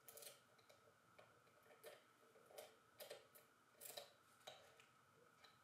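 Key turned in and drawn out of a Millenco Magnum 7x4 security cylinder lock: a series of faint, irregular clicks.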